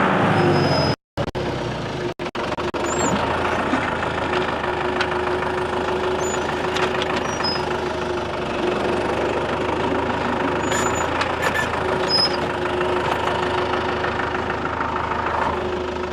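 A John Deere 5520 tractor's diesel engine running steadily under heavy load as it drags a big log on a chain, hard to pull. The sound drops out for an instant about a second in, and the engine eases off a little near the end.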